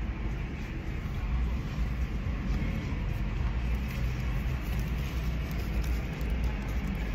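Steady low rumble of a car's engine and road noise heard from inside the cabin.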